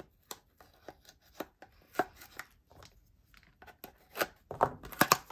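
Hands handling and prying open a small cardboard knife box: scattered light clicks, taps and scrapes of cardboard, coming thicker and quicker near the end.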